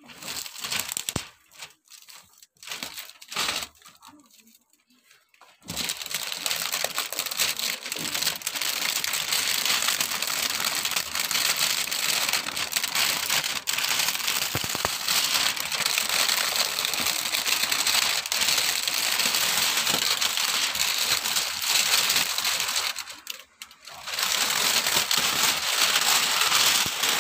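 Metallic foil gift wrap crinkling and tearing as it is pulled off a box by hand: a few separate crinkles at first, then, about six seconds in, a dense continuous rustle that breaks off briefly near the end.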